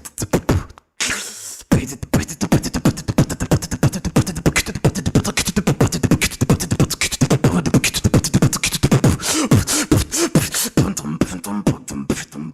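Solo beatboxing: a fast, unbroken run of vocal drum sounds (kicks, snares and hi-hat clicks made with the mouth). There is a brief stop and a hissing breath about a second in, and some bending, hummed bass tones later on.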